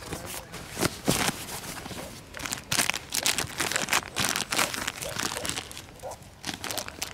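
Thin plastic packaging bag crinkling and rustling in irregular bursts as it is opened by hand and a foil-wrapped firework ball is pulled out of it.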